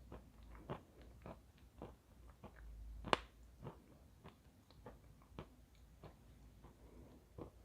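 Someone chewing chalk: a string of soft crunches about twice a second, with one sharper, louder crunch about three seconds in.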